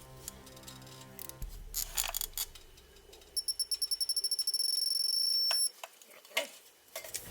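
Electronic torque wrench beeping: a run of rapid beeps that turns into a steady tone as the bolt reaches its set torque of 21 N·m. Before and after it come a few light metallic clicks of the wrench on the driveshaft bolts.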